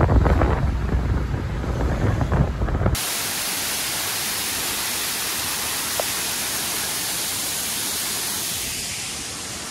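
Wind buffeting the microphone for about the first three seconds, then an abrupt change to the steady, unbroken rush of a waterfall pouring down a stone wall.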